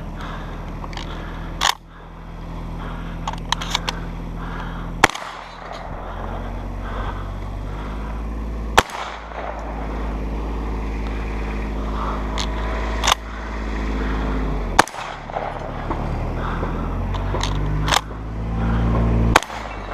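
Seven shotgun shots from a Remington Versamax semi-automatic 12-gauge, fired singly a few seconds apart, with a few light clicks between the first shots. A UTV engine runs steadily underneath.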